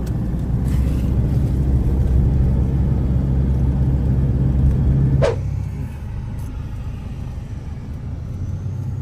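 Car engine and road rumble heard from inside the cabin while driving, loud and steady; about five seconds in it drops abruptly to a quieter low hum as the car slows at a gate.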